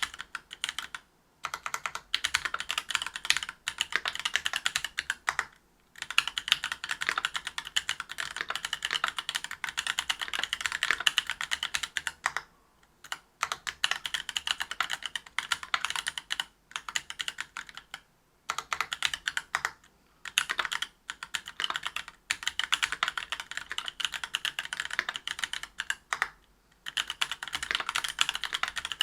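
Typing on a Whale 75 mechanical keyboard with stock, unlubricated Gateron Silver Snow 65 g tactile switches on a brass plate and GMK keycaps: fast, continuous key clacks broken by several short pauses.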